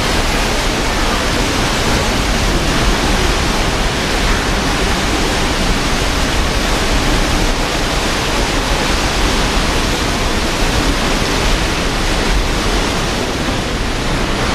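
Steady, loud rushing of churning water in the SS Badger's propeller wash, an even roar with no tones or rhythm in it.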